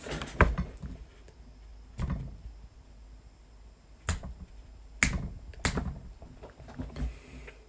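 Handling noise on a phone held at arm's length: about six short, sharp taps and clicks at irregular intervals, in a quiet room.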